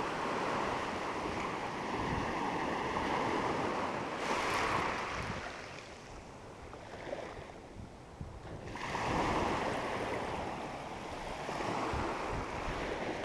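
Ocean surf washing onto the beach, the rush swelling and easing in slow waves, with some wind on the microphone.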